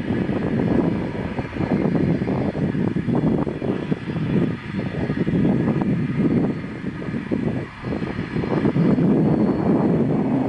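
Long iron-ore freight train's wagons rolling along the track: a loud, continuous rumble that swells and dips briefly twice.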